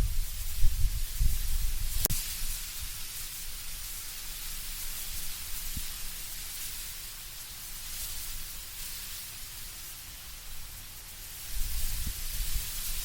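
Wind blowing through autumn trees, with a steady rustle of leaves. Low gusts of wind come at the start and again near the end, and there is a single sharp click about two seconds in.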